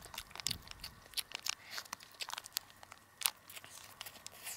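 A person chewing and biting into food close to the microphone, with a plastic food wrapper crinkling in the hands: a scatter of small crunches and crackles.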